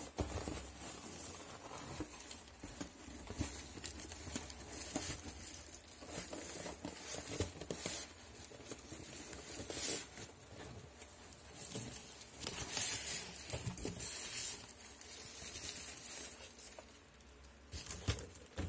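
Irregular rustling and crinkling of packaging being handled close to the microphone, with scattered light knocks.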